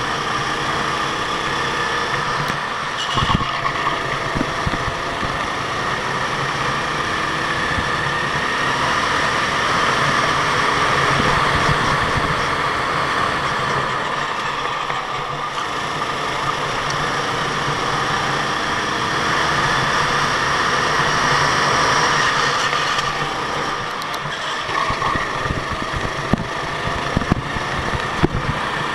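Go-kart engine running, its pitch rising and falling, with a few sharp knocks near the end.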